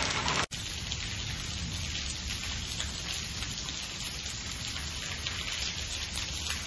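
Steady rain falling on hard paving, an even hiss with scattered drop ticks. It breaks off for an instant about half a second in, then carries on a little quieter.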